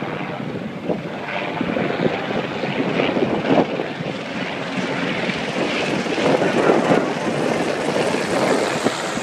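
Military H-60-type helicopter flying overhead, its rotor and engine noise growing steadily louder as it approaches.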